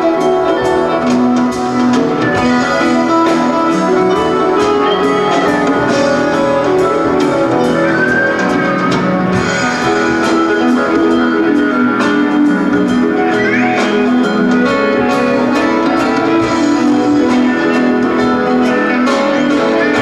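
Live rock band playing an instrumental jam: guitar lines over keyboards, bass and drums, with a few rising bent notes about 13 seconds in.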